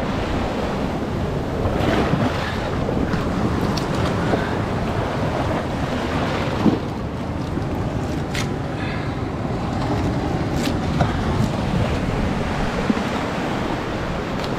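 Surf washing against a rock, with wind on the microphone. Several sharp clicks and knocks of green-lipped mussel shells as they are pulled by hand from the rock, the loudest about halfway through.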